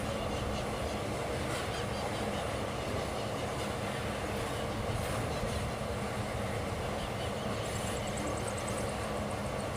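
Iron ore freight train rolling past, a steady rumble of wheels on rail with faint regular clacks.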